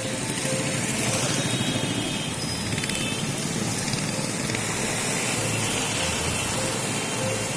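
Cars and a bus driving through flood water on a waterlogged road, their tyres splashing and swishing through the water over steady engine and traffic noise.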